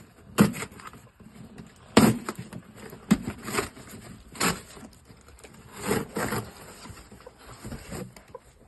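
Irregular knocks, thumps and scuffs from cardboard poultry shipping boxes being handled and moved, about seven sharp knocks spread over several seconds with rustling between them.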